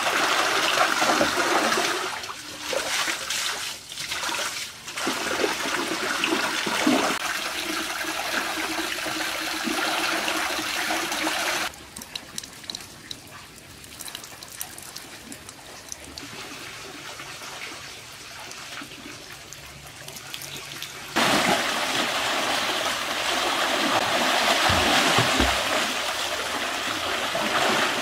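Water pouring from a spout into a shallow pool and splashing, with people wading in it. About twelve seconds in the sound drops suddenly to a quieter stream of water falling from a pipe, and it turns loud again about 21 seconds in.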